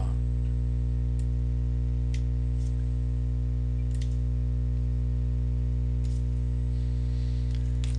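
Steady electrical hum: a constant low buzz with a stack of evenly spaced overtones, picked up by the recording. About six faint, short clicks are scattered through it.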